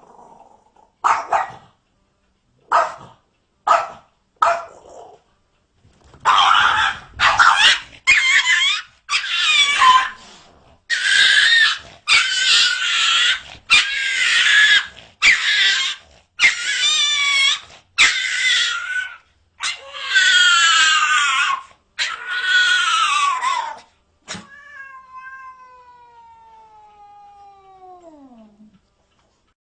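Cats meowing and yowling in a string of short, abruptly cut bursts whose pitch bends up and down. Near the end comes a faint long tone that glides down in pitch.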